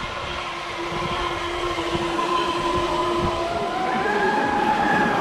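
Electric radio-controlled speedboat running at speed: a steady high motor whine over a hiss, with a whine that rises in pitch about four seconds in.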